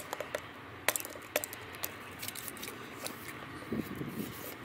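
A hand-held blade scraping burrs off the old screw holes in a uPVC window frame: short scrapes and sharp clicks at irregular intervals.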